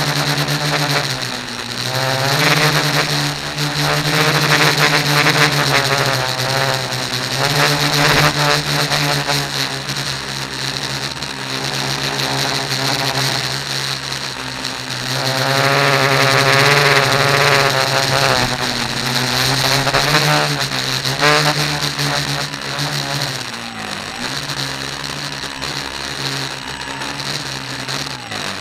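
A tricopter's electric motors and propellers running in flight, heard up close from a camera mounted on the craft: a steady multi-toned whine whose pitch dips and comes back up several times as the throttle changes.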